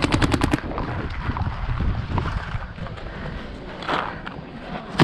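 Paintball marker firing rapidly, about eight shots a second, stopping about half a second in; then lower uneven noise with one brief louder burst near four seconds.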